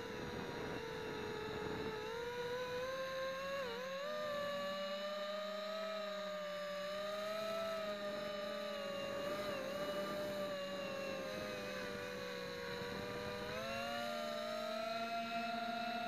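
Motors and propellers of an FPV250 racing quadcopter whining in flight, heard from a camera mounted on the frame. The pitch wanders up and down with the throttle and climbs and holds higher near the end.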